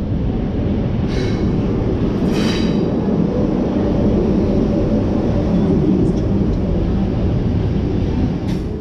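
1927 Sydney 'red rattler' single-deck electric train set running past at close range as it pulls out of the platform: a steady heavy rumble of wheels and motors, with brief high squeals about a second and about two and a half seconds in.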